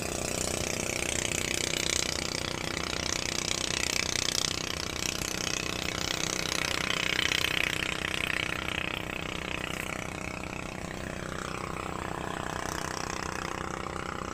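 An engine running steadily at idle, with a hiss over it that swells and fades.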